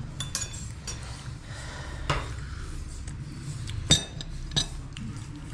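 Crockery and cutlery clinking on a table at a meal, in scattered sharp clinks. The loudest comes about four seconds in, with another just after.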